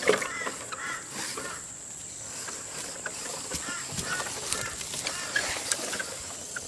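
Birds chirping in short arching calls, in little clusters near the start and again about two thirds of the way in, with scattered light clicks and knocks and a faint steady high whine underneath.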